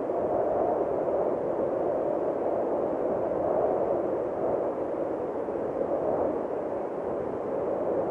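Ambient soundscape of a light-and-sound installation: a steady, muffled rushing noise with no clear pitch that slowly swells and eases.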